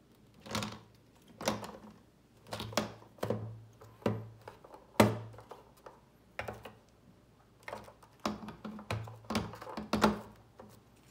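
Irregular clicks and knocks of a diecast model semi truck being handled: the plastic trailer is lifted off and set back onto the metal cab, with parts and wheels tapping together, about a dozen knocks in all, the loudest about five seconds in and near the end.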